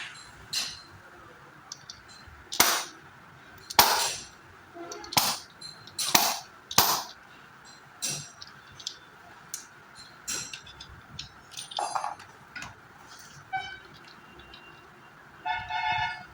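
Steel gearbox pinions and parts of a Hero Glamour BS6 motorcycle clinking and clanking as they are handled and set down, a dozen or so sharp metallic knocks at uneven intervals, with a brief ringing tone near the end.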